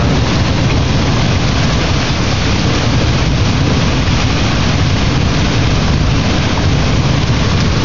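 Heavy thunderstorm rain falling steadily, a dense even hiss with a strong low rumble underneath.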